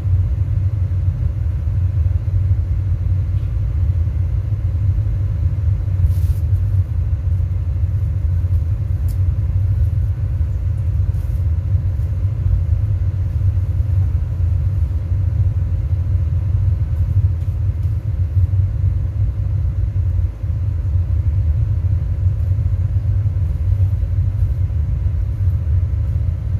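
Sound system subwoofers putting out a steady deep rumble with no beat or pitch, all of it below about 200 Hz, as when bass cabinets are fed a low-passed noise signal during setup.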